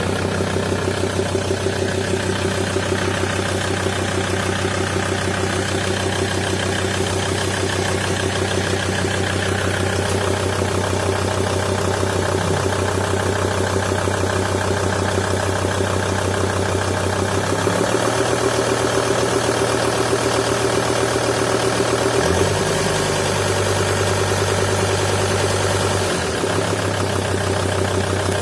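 SsangYong Rexton 2.7 Xdi five-cylinder turbodiesel idling, with a strange rhythmic beating or knock coming from between the engine and its Mercedes 722.6 automatic transmission. The low hum shifts in pitch a few times in the second half.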